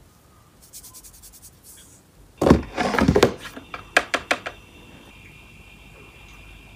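A cardboard gift box being handled, making a cluster of dull thunks, followed by about four quick sharp clicks.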